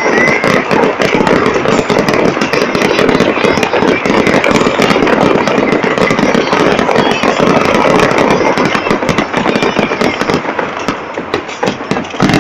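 Fireworks display going off in a dense, continuous barrage of rapid cracks and pops, thinning slightly near the end.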